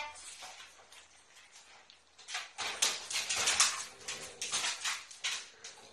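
A French bulldog moving about on a wire dog crate, making a run of quick, irregular scuffling noises from about two seconds in.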